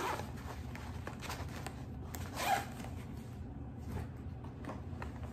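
Zipper on a padded fabric carry bag being pulled open, with rustling and handling of the bag's fabric; the loudest rasp comes about halfway through.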